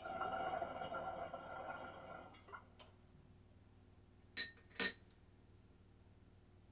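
Water bubbling in a glass helix vortex bubbler as smoke is drawn through it, for about two seconds. About four seconds in come two sharp, ringing glass clinks half a second apart.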